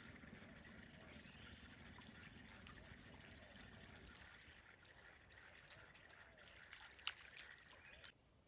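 Faint water trickling, with a few light clicks near the end; it cuts off suddenly.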